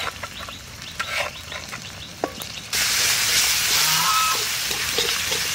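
Ginger, garlic and dried red chilli paste frying with onions in hot oil in a steel wok, stirred with a metal spatula. A few light spatula taps come first, then about two and a half seconds in a loud sizzle starts and keeps going.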